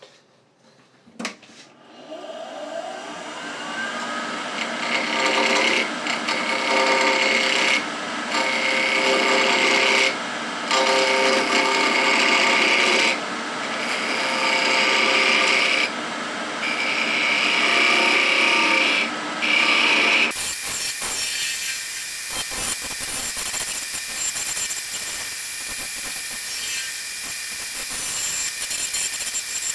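Wood lathe switched on with a click and spinning up with a rising whine, then running steadily while a turning tool cuts a softwood spindle blank in short passes. About two-thirds of the way through the sound changes abruptly to a steady hissing cut.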